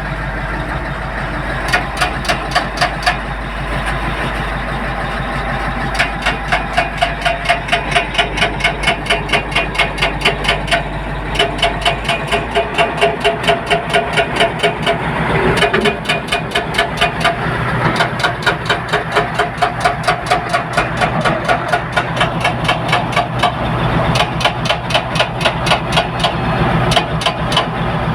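Heavy diesel construction machinery running steadily, with runs of fast, even metallic knocking, about four to five blows a second, that stop and start several times.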